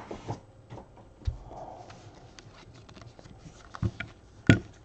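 Hard plastic graded-card slabs clicking and tapping against each other and the table as they are handled, with a soft thump about a second in and a sharper clack near the end.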